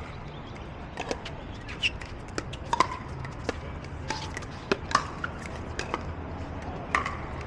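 Pickleball play: about a dozen sharp, irregularly spaced pops of paddles striking the plastic ball and the ball bouncing on the hard court, over a steady low rumble.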